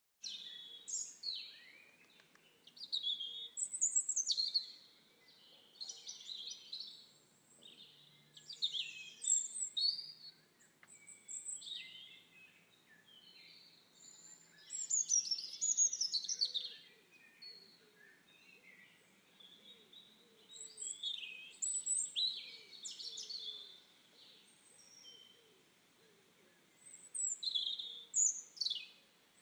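Wild birds calling: bursts of quick high chirps and whistled notes recur every few seconds, with a sharp falling whistle near the end.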